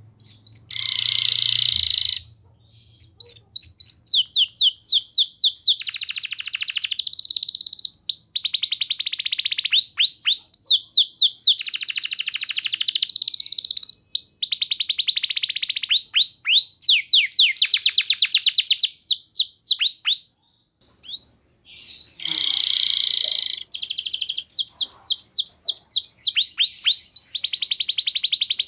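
Domestic canary singing long, fast trills of repeated high, downward-sweeping notes mixed with buzzier rolls, in loud phrases broken by a couple of brief pauses.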